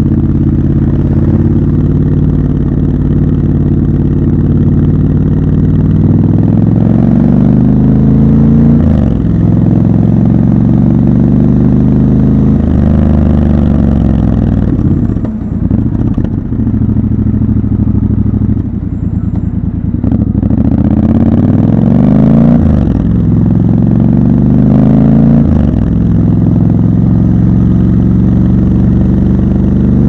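Triumph Scrambler 1200 XC's 1200 cc parallel-twin engine running loud under the rider, its revs climbing and dropping back sharply several times as the bike pulls through city traffic, with steadier cruising in between.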